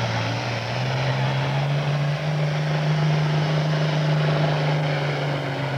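International farm tractor's diesel engine running hard at high revs, pulling a weight-transfer sled. The pitch steps up a little about two seconds in.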